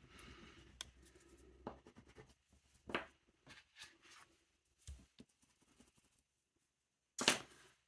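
Faint scratching of an oil pastel stroked across paper over a dried paint layer, with scattered light taps, then a brief louder knock near the end.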